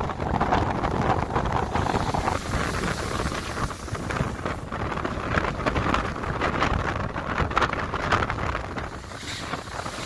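Strong wind buffeting the microphone over rough surf, with waves washing and breaking against a concrete pier wall.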